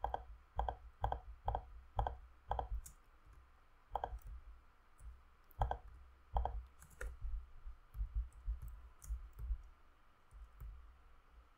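Clicks of a computer mouse and keyboard while working in 3D modelling software. A quick run of single clicks, about two a second, fills the first couple of seconds, then come scattered clicks with pauses between.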